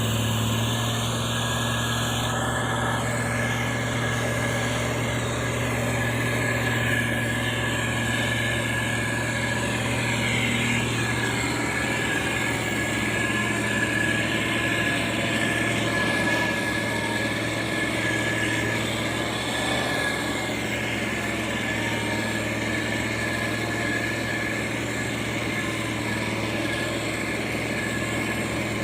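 Diesel engine of heavy road-construction machinery running steadily at an even speed, with a constant low hum and a faint steady whine above it.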